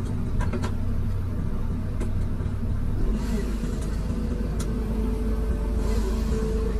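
Komatsu PC210 hydraulic excavator's diesel engine running steadily, heard from inside the cab, its note getting deeper about three seconds in. A steady hydraulic whine joins in the second half as the arm lifts the hanging concrete hopper.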